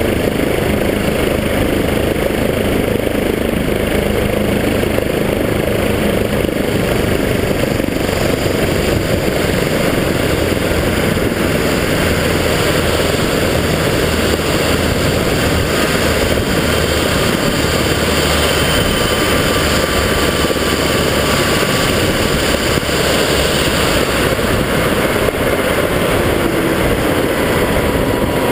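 Air-ambulance helicopter running on the ground with its main rotor turning: a steady turbine and rotor noise with a faint high whine on top.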